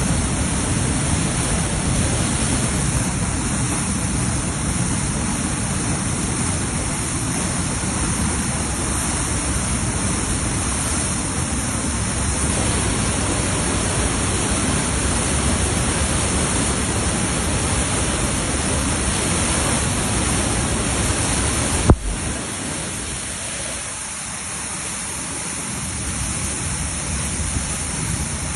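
Floodwater rushing in a steady, loud torrent of noise. A sharp click comes about three-quarters of the way through, after which the rush is a little quieter.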